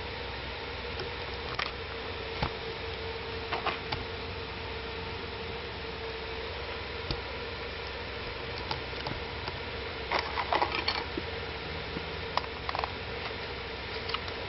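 Steady background hiss and faint hum with scattered small clicks and knocks, several close together about ten seconds in. No smoke alarm sounds: the cheap smoke detector stays silent under the smoke.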